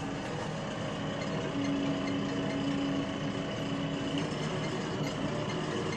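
JCB 3DX backhoe loader's diesel engine running steadily, with a steady tone that grows stronger for a few seconds near the middle.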